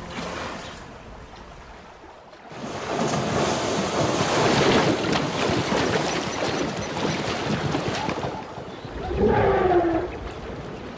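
A herd of zebras rushing and splashing through shallow river water, a dense splashing rush that starts a couple of seconds in and runs for about six seconds. Near the end an animal gives one short call that falls in pitch.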